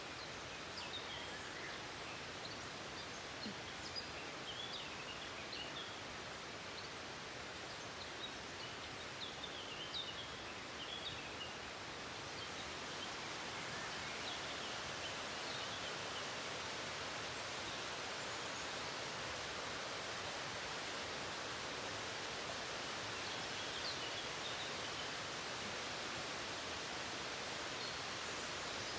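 Steady rush of a waterfall, growing slightly louder about halfway through, with small birds chirping now and then, mostly in the first half.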